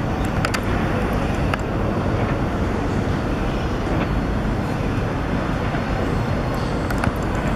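Steady rumble of a New York City subway train running on elevated track, heard from a distance among outdoor city noise, with a few sharp clicks early and a small cluster near the end.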